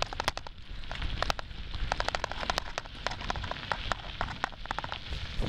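Bicycle riding fast over a gravel rail trail: tyres crunching and the bike rattling with many irregular sharp clicks, over a steady low rumble of wind on the microphone.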